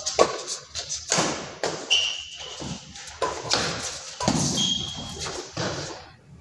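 Badminton doubles rally: a quick series of sharp racket hits on the shuttlecock, about two a second, mixed with players' footsteps. Two short high squeaks, about 2 and 4.5 seconds in, fit court shoes skidding on the floor.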